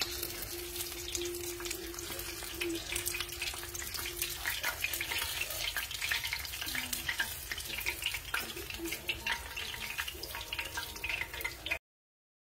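Beer-battered smelt deep-frying in hot oil in a skillet: a steady, dense crackle and sizzle of bubbling oil that cuts off suddenly near the end.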